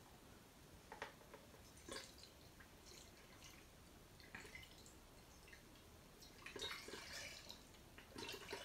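Faint drips and trickles of dyed coolant being poured through a funnel into a custom PC water-cooling loop's reservoir, a little at a time, with a slightly louder spell about two-thirds of the way through.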